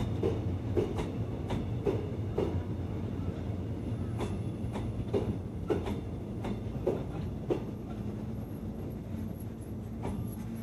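V-train passenger carriages rolling slowly in at a station: a steady low rumble with sharp clacks of the wheels over rail joints, spaced further apart as the train slows. A faint high squeal joins in the second half.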